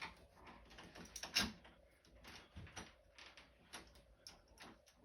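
Scattered light clicks, scrapes and knocks of door lock hardware being handled and worked on a door, with one sharper knock about a second and a half in.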